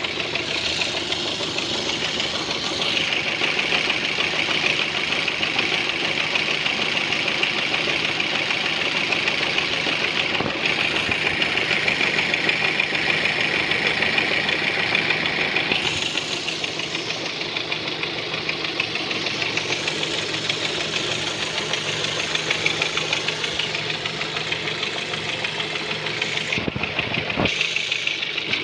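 Ford Focus 2's 1.8 engine running steadily with a rapid, even knocking and ticking, the knocks the owner is recording as a fault. The ticking is sharper from about three seconds in until about halfway, then eases slightly.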